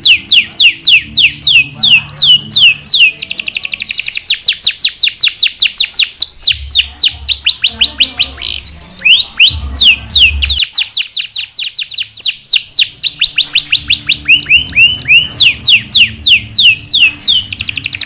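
Yellow domestic canary singing a long song: runs of rapid down-slurred notes, several a second, repeated in rolling trills that change speed, with a short change of phrase about halfway through.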